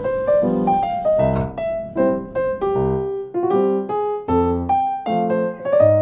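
Background piano music: a gentle melody of single notes over soft chords, a few notes a second.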